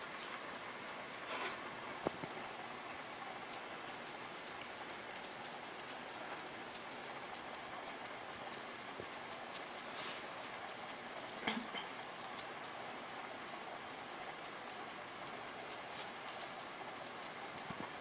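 Chinese ink brush dabbing and scratching on absorbent rice paper, making many small irregular ticks over a steady hiss.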